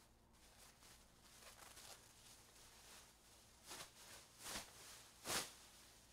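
Faint rustling and handling noises, with three short louder scuffs between about three and a half and five and a half seconds in, the last the loudest.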